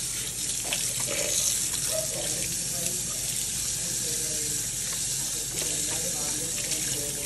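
Sink faucet running steadily, its stream splashing over a wet capuchin monkey and into the sink basin.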